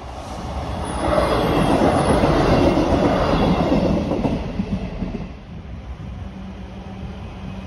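Train running on the rails with the clatter of wheels on track, loudest from about one to four and a half seconds in, then easing off before building again near the end.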